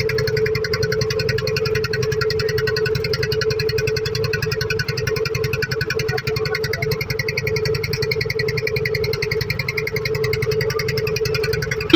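A boat's engine running steadily with a fast, even beat and a constant hum.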